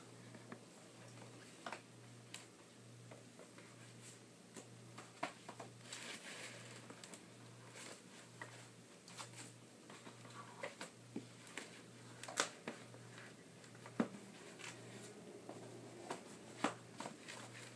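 Faint scattered clicks, taps and rustles of a VHS box set being handled while tapes are worked back into the box, with a few sharper clicks in the second half.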